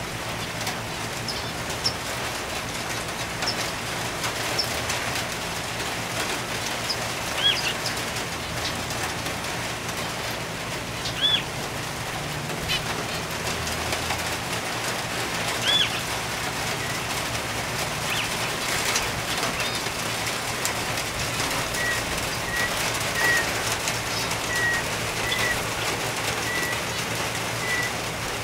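Aviary birds calling over a steady hiss of light rain. A few separate arched chirps are spread through, and about two-thirds of the way in a regular series of short, clear notes begins, a little more than one a second.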